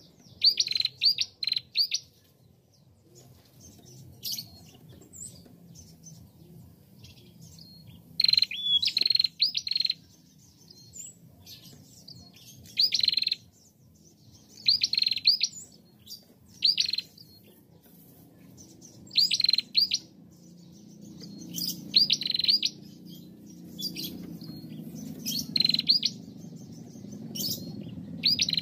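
Female prenjak calling vigorously: short bursts of rapid, high chirping notes repeated every two to three seconds.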